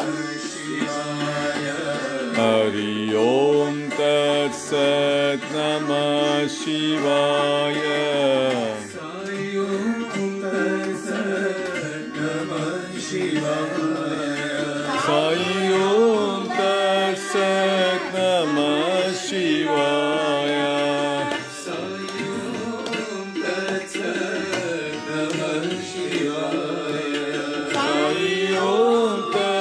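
Devotional bhajan singing with tabla accompaniment: voices holding and gliding through the melody over steady drum strokes, a live Sai bhajan broadcast played on a television.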